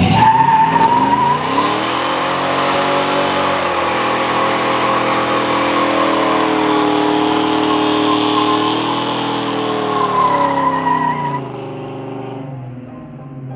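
Car doing a burnout: the engine revs up right away and is held high, wavering, while the spinning rear tyres squeal on the asphalt. Near the end the revs drop and the sound fades down.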